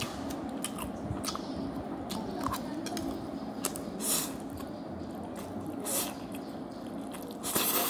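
Close-up wet chewing and slurping of noodles in black bean sauce, with small smacking clicks throughout and three louder slurps: about four seconds in, about six seconds in, and near the end.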